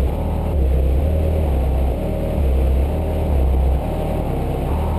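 Background music with a repeating bass line that steps between low notes about every half second.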